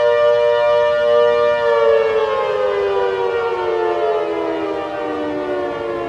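Civil defense siren sounding a steady tone, then from about a second and a half in winding down, its pitch falling slowly and steadily.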